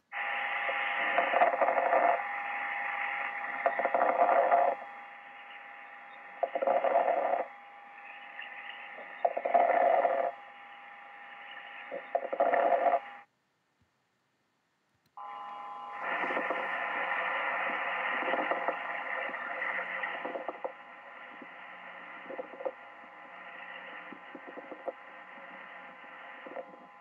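Recorded clinical breath sounds from chest auscultation, in two separate recordings with a short silent gap between them. The first rises and falls with each breath, about every two to three seconds. The second is a steadier breathing noise with scattered short clicks.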